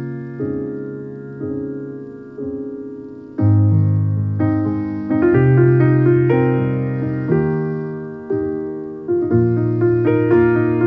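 Background piano music: notes and chords struck roughly once a second, each left to ring and fade.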